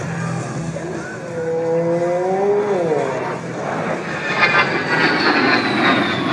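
A-10 Warthog jet flying past: its engine tones rise and then drop sharply in pitch as it goes by about three seconds in. A high turbofan whine follows, falling in pitch.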